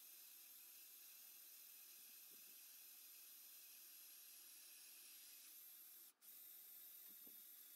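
Near silence: a faint steady hiss with a thin high whine, cutting out for a moment about six seconds in.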